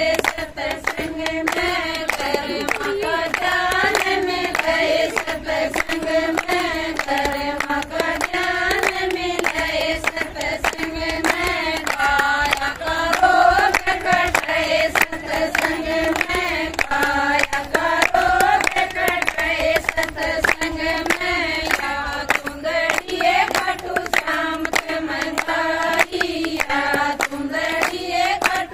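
Women singing a Haryanvi folk song together, without instruments, to steady hand-clapping on the beat.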